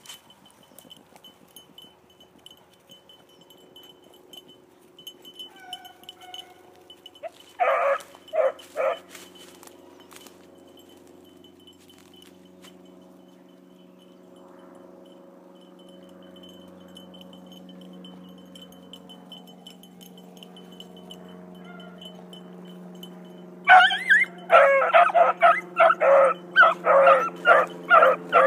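Beagles giving voice on a rabbit's trail. Three loud barks come about eight seconds in, then a fast run of barks, two or three a second, starts about 24 seconds in, with a faint steady hum underneath.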